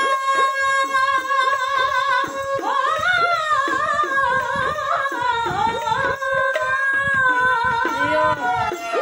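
Dhadi singing: women's voices hold one long note for the first couple of seconds, then sing a winding melody, with a sarangi and quick steady beats on the dhadd hand drums.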